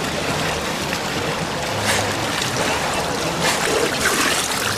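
Water splashing as swimmers thrash through a swimming pool, over a steady rush of water from fountain jets pouring into it. The splashes swell a few times, about two seconds in and again near three and a half seconds.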